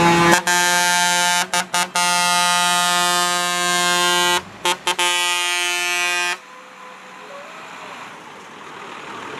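A tractor's air horn blown at one steady pitch in long blasts broken by a few short gaps, cutting off suddenly about six seconds in. After that only quieter tractor engine noise remains.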